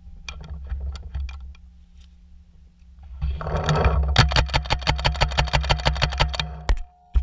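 Paintball marker firing a rapid string of shots, about ten a second for some two and a half seconds, starting a little past the middle; a few single shots pop in the first second or so.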